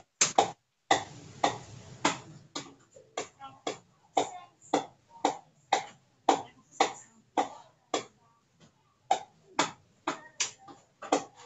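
A rhythmic series of short, sharp percussive sounds, about two a second, with a brief pause about eight seconds in.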